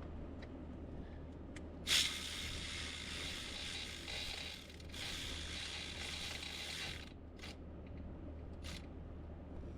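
Hand ratchet wrench tightening the steering column's mounting bolts: a sharp click, then two runs of fast ratchet clicking of about two and a half seconds each with a short break between, then a few single clicks near the end.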